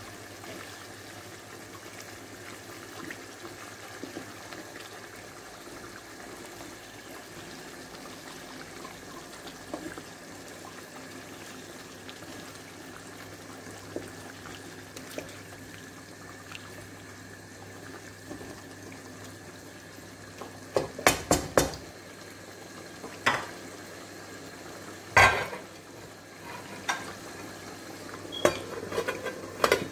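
Chicken and potato curry simmering in a frying pan with a steady hiss. Near the end a wooden spatula knocks against the pan: a quick cluster of four or five knocks, then several single knocks, one much louder than the rest.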